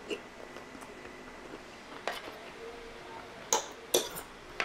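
Metal spoon and fork clinking against a plate while picking apart a cooked fish, four sharp clinks in the second half, the loudest two about half a second apart.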